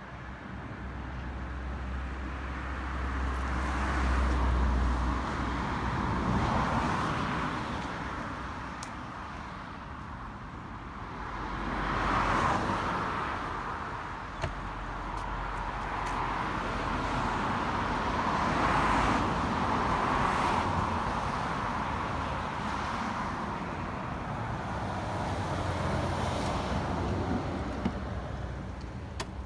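Road traffic passing, the rush of several cars swelling and fading one after another. A single sharp click about halfway through.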